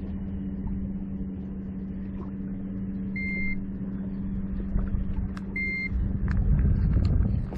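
A handheld digital fish scale gives two short electronic beeps, about two and a half seconds apart, while a catfish is being weighed. A steady motor hum with a low rumble runs underneath.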